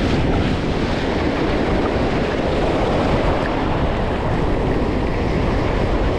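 Steady wind buffeting the microphone over the rush of surf on the beach.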